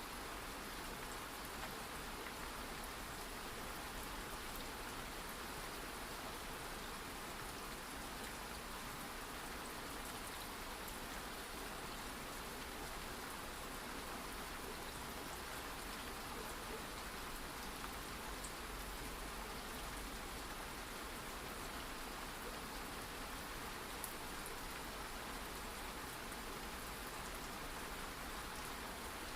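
Steady rain falling on a surface, an even hiss with soft drop patter.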